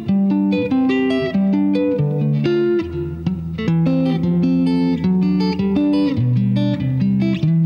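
Stratocaster-style electric guitar picking wide, open-voiced chords one note at a time, several notes a second, each note ringing on under the next. The bass note changes twice as the chords move through a progression.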